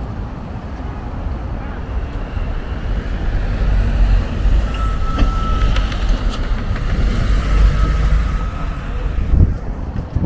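Busy city street: a steady low rumble of traffic, with a thin high squeal that holds for a few seconds in the middle.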